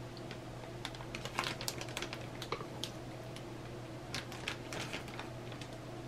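Wooden chopsticks clicking and tapping against a ceramic bowl and against each other as raw chicken pieces are picked up. The clicks are irregular and come in two flurries, over a steady low hum.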